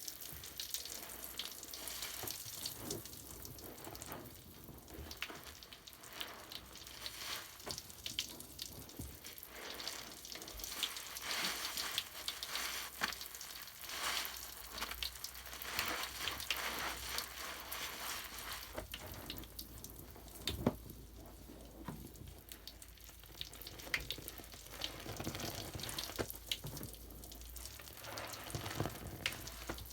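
Bubble bath foam crackling and popping in water: many small, irregular pops and ticks over a wet hiss.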